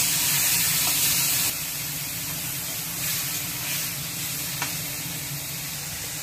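Boiled bottle gourd sizzling in hot oil in a kadai as it is stirred with a metal spatula. The sizzle is louder for the first second and a half, then settles to a steady, lower frying hiss.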